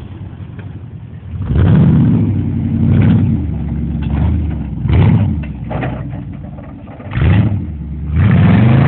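Lifted 1990s Chevy pickup's engine revving hard in several surges, then held at high revs near the end as the truck is driven flat out off-road.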